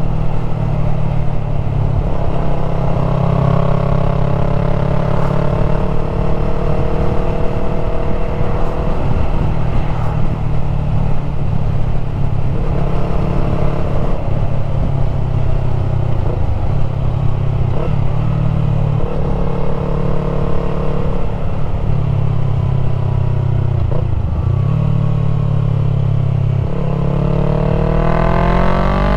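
Yamaha MT-03 with a full aftermarket exhaust under way, its engine note rising and falling as the throttle is eased and rolled on through the bends, with a few brief dips in revs. Near the end the revs climb steeply under hard acceleration.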